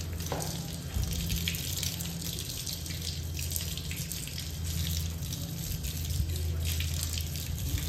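Water from a garden hose spraying and splashing onto a dog's wet coat and a concrete floor: a steady hiss with a low hum underneath.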